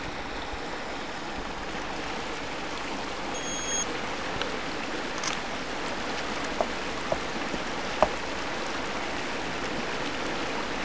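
River water flowing and rushing steadily. There are a few short plinks between about six and eight seconds in, and a brief beep about three and a half seconds in.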